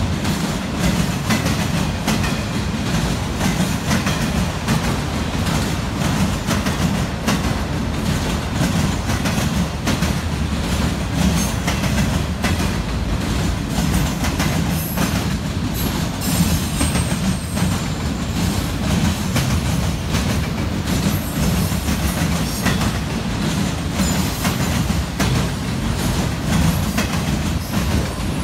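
Norfolk Southern freight train of autorack cars rolling past: a steady low rumble of steel wheels on rail, with fast clacking as the wheels pass over the track, and a faint high wheel squeal about halfway through.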